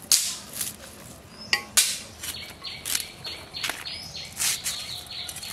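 Crisp crunching snaps of raw cabbage and broccoli being cut against a boti, a fixed curved blade, several irregular cuts with the loudest near the start and about a second and a half in. Birds chirp faintly in the background.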